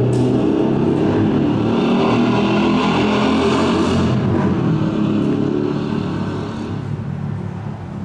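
Motorcycle engine running and being revved, its pitch wavering, strongest around three to four seconds in and then fading away over the last few seconds.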